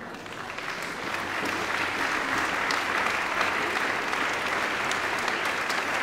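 Crowd applauding: many hands clapping in a dense patter that swells over the first second or so and then holds steady.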